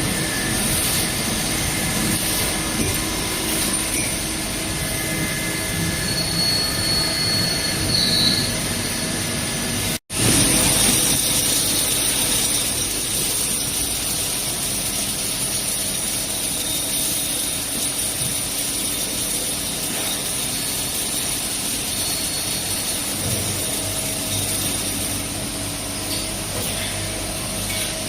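CNC lathe running while machining stainless steel, a steady mechanical hum and hiss with a few constant tones. A short high whine comes in about six seconds in, and the sound breaks off for an instant near ten seconds before picking up again.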